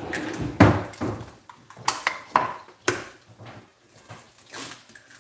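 Fresh eggs being cracked over a stainless steel mixing bowl: a few sharp taps and cracks of shell, with the shell pulled apart over the bowl.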